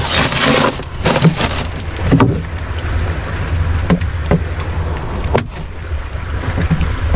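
Knocks and rattles from a wire-mesh landing net of fish being handled on a plastic boat floor, a few separate clatters, over a steady low rumble. A brief rushing noise sounds at the start.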